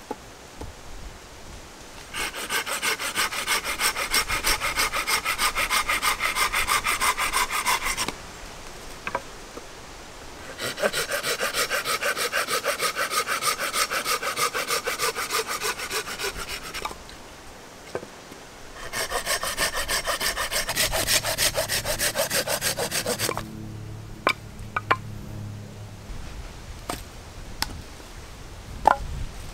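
A hand saw cutting through a wooden branch in fast, even back-and-forth strokes, in three bouts with short pauses between, as the branch is cut into firewood lengths. A few light knocks of wood follow near the end.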